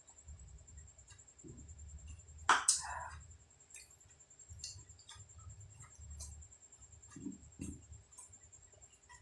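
Close-miked chewing of food, with repeated soft low mouth sounds and small wet clicks. There is one loud, sharp noise about two and a half seconds in.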